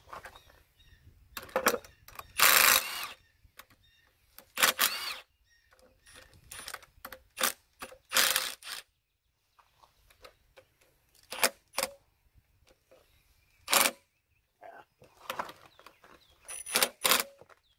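Cordless power wrench running in short bursts, about seven times, each under a second, on the oil pump bolts of a John Deere engine, with small metal clinks between.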